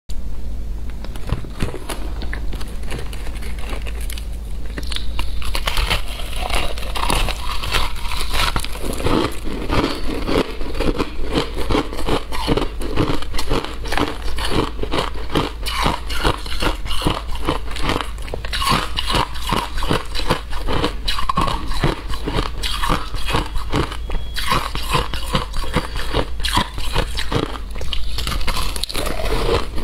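Close-miked biting and chewing of frozen shaved-ice chunks: a continuous run of loud, crisp crunches as the ice is bitten off and crushed between the teeth. A steady low hum lies underneath.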